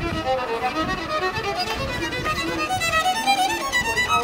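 Instrumental music playing a quick melody of short notes.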